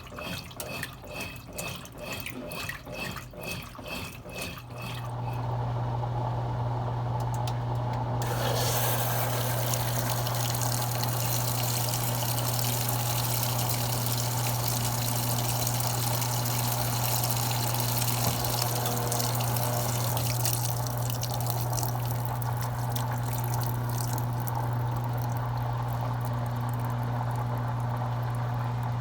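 Consul Cargo 8 kg washing machine: a rhythmic pulsing of about two beats a second for the first few seconds, then a steady electric hum starts about five seconds in, and a few seconds later water begins rushing through the machine and keeps flowing.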